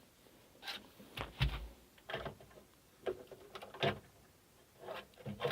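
Handling noise: a series of light knocks and clatters, with a duller thump about a second and a half in, as meter leads and tools are worked against the excavator's metal.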